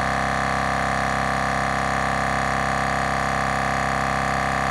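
Milwaukee M18 Fuel 2840-20 cordless air compressor running steadily as it refills its 2-gallon tank; the motor and pump are not very loud.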